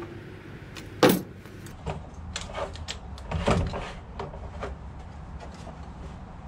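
Knocks, clicks and rattles of plastic and metal parts as the Stihl HLA 65 pole hedge trimmer is handled and its cutting head is pivoted to a new angle: a sharp knock about a second in, a rattling cluster around three and a half seconds, then a few lighter clicks.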